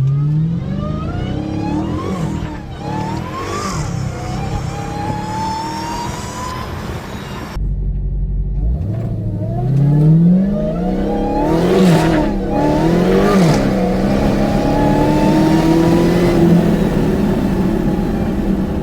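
Dodge Hellcat's supercharged 6.2-litre Hemi V8, on stock exhaust with a Corsa cold air intake, accelerating hard through the gears twice. The engine note climbs, drops back at each upshift and climbs again, with a high supercharger whine rising above it.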